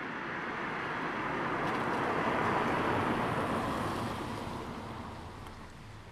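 A car passing by: a rushing noise that swells to a peak about two and a half seconds in, then fades away.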